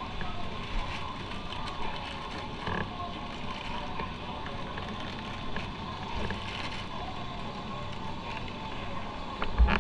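A motorcycle on the move, heard from on board: steady engine and wind noise, with a sharp low thump near the end.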